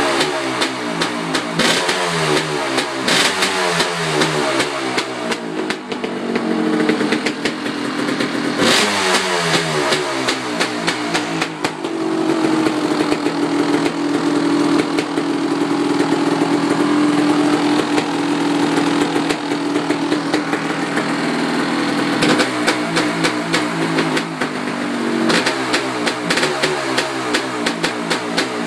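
1989 Kawasaki KX500's 500 cc two-stroke single-cylinder engine revved in repeated throttle blips, each falling back, then held at a steady raised speed for about ten seconds before the blips resume near the end.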